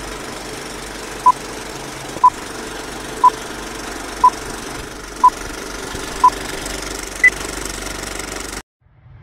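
Film-leader countdown sound effect: an old film projector running with a steady clattering whir, over which a short beep sounds once a second six times, then a higher final beep. The whole sound cuts off suddenly near the end.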